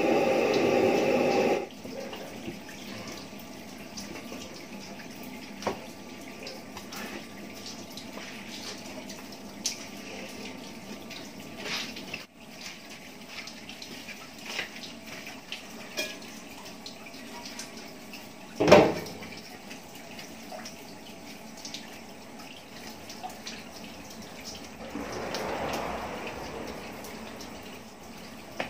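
A large aluminium pot of rice cooking in boiling water: a steady bubbling hiss with scattered drips and small clicks, louder for the first second or so. There is one loud knock about two-thirds through, and a swell of hiss near the end.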